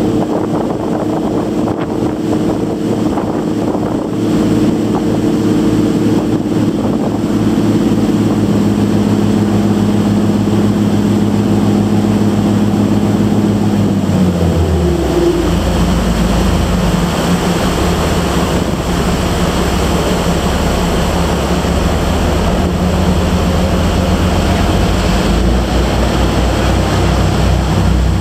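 Boat engine running under way, with water rushing past the hull. About halfway through the engine drops to a lower pitch as the throttle is eased and the boat slows, and it runs on at the lower speed.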